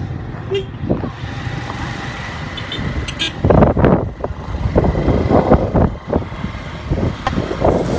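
Wind buffeting the phone's microphone on a moving motorcycle, over the steady rumble of the engine and road; the buffeting grows heavy about halfway through.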